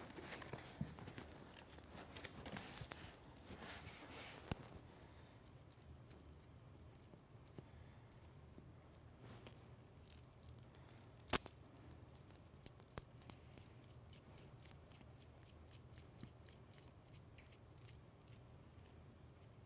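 Faint clinking and rattling of small metal hardware: a pulley's eye bolt, coiled spring and washers handled as the nuts are worked off the bolt. One sharper clink about eleven seconds in, then a run of quick light ticks.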